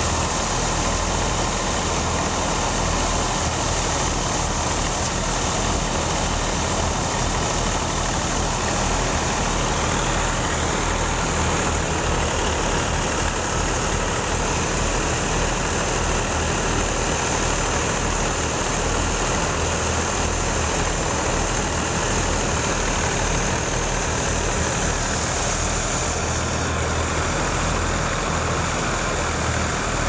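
Tractor-powered wheat thresher running steadily: the Fiat 480's diesel engine drives the threshing drum and belts through its PTO shaft, with a constant low engine hum under an even whirring rush.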